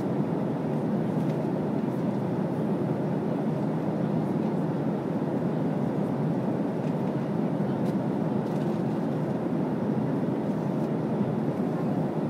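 Steady cabin noise of an airliner in cruise flight: an even, low rush that holds unchanged throughout.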